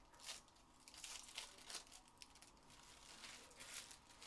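Foil wrapper of a Panini Phoenix football card pack crinkling faintly in several short rustles as it is handled and opened.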